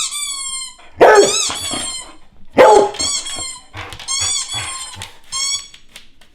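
A squeaky-toy sound effect played through a TV squeaks about five times, each a high-pitched squeak with slightly falling pitch. A trailhound barks loudly twice over it, about one second in and near three seconds, excited by the squeaks.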